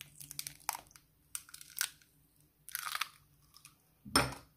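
Crackling, crunching eggshell as a raw egg is broken and emptied into a glass bowl of flour, in several short bursts, then one louder knock near the end.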